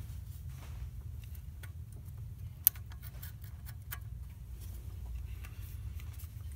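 Torque wrench on a crowfoot adapter tightening a diesel injector fuel-line nut to 15 N·m. There are a few light ticks and one sharp click about two and a half seconds in, the wrench signalling that the set torque is reached. A steady low hum runs underneath.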